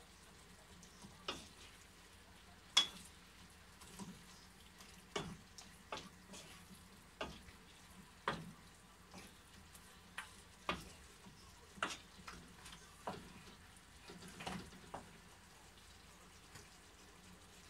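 Wooden spatula stirring a stir-fry in a nonstick frying pan: a knock or scrape against the pan about once a second over a faint sizzle. The stirring stops near the end.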